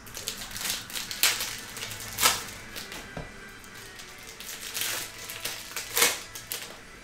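Stiff trading cards being handled and sorted by hand: a run of soft slides and flicks with several sharper snaps as cards are pulled off a stack and laid down, the loudest about one, two, five and six seconds in.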